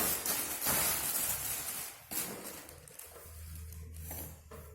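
Plastic packaging around a car amplifier rustling and crinkling as it is unwrapped, busy for about two seconds and then quieter. A steady low hum comes in near the end.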